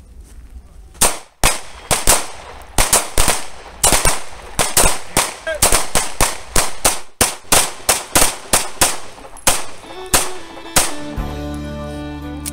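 Several handguns firing on an outdoor range: irregular, overlapping shots, often several a second, for about ten seconds, as a line of shooters fires a qualification string. Near the end the shooting stops and background music comes in.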